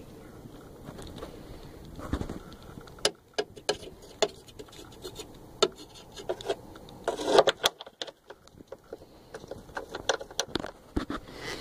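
Hand work on small parts: scattered sharp clicks, knocks and scrapes of tools and hardware being handled, with a louder clatter about seven seconds in.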